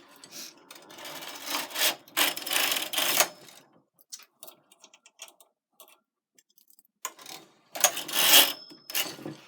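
Knitting machine carriage pushed across the needle bed and back: two clattering passes, each a second or two long, with light clicks of handling between them.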